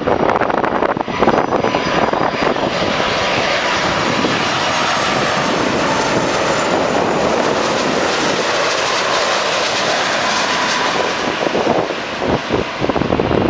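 Airbus A330-200's two turbofan engines at approach power as the airliner passes low overhead on final approach: a loud, steady rushing jet noise with a faint whine in it. Wind buffets the microphone in the first couple of seconds and again near the end.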